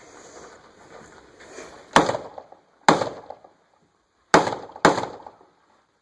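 Four rifle shots from an AR-15 with a muzzle compensator, each trailing off in echo. The first two come about a second apart, and after a longer pause the last two come in quick succession.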